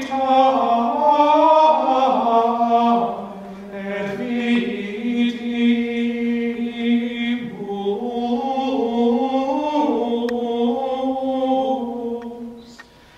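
Choir of men's and women's voices singing Latin liturgical chant in held, slowly moving notes, the phrase dying away near the end.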